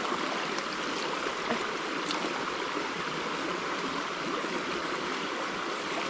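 Shallow river running over stones: a steady rushing of water.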